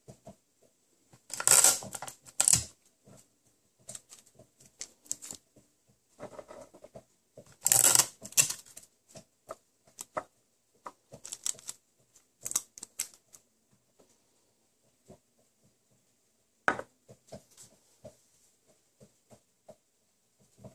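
Sticky tape pulled off the roll and torn, twice, about six seconds apart, with light tapping and rustling of wooden cocktail sticks and tape against a glass jar in between. A single sharp knock about two-thirds of the way in.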